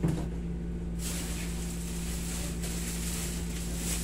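Steady hum and hiss of a room air conditioner running, with one short sound right at the start.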